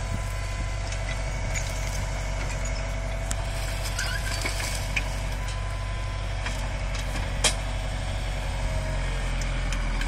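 Tractor diesel engine running steadily while powering a hydraulic timber crane that loads brush onto a trailer, with a steady whine over the engine drone. A few sharp knocks cut through, the loudest about seven and a half seconds in.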